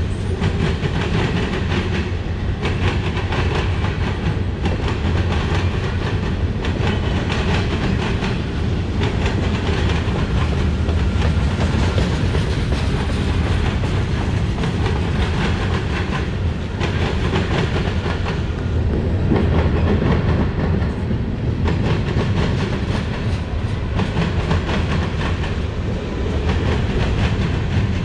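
Freight train cars (tank cars and covered hoppers) rolling past mid-train: a steady rumble of steel wheels on rail with scattered clacks as wheels cross rail joints.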